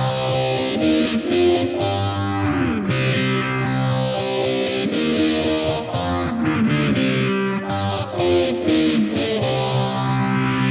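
Distorted electric plucked-string instrument playing sustained notes and slides through effects, with a swirling sweep that rises and falls every few seconds.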